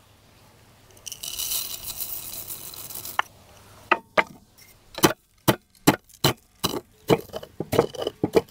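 Whole peppercorns and coriander seeds poured into a wooden bowl, a rattling hiss lasting about two seconds. Then a run of sharp wooden knocks, about two a second: a wooden pestle pounding the spices in a wooden mortar.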